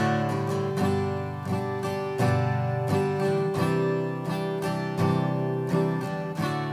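Acoustic guitar strummed in a steady rhythm through the open chords of a G, C, D progression, played plain without filler notes between the chord changes.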